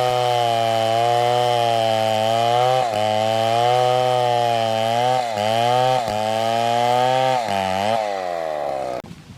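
Chainsaw running at high revs under load as it cuts into a tree, its pitch dipping briefly a few times as the chain bites and then recovering. Near the end the pitch falls away as the throttle is released and the engine drops back.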